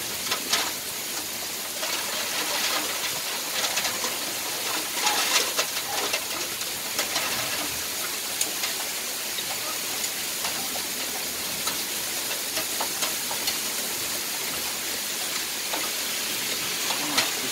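Heavy rain falling steadily: a dense hiss scattered with many sharp ticks.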